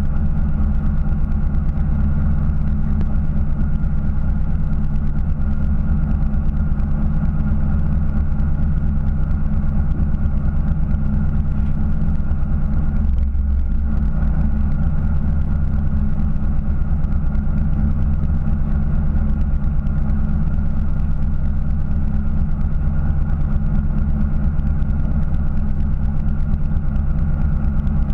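Fishing boat's engine running at a steady idle, a constant low drone with a brief dip in tone about halfway through.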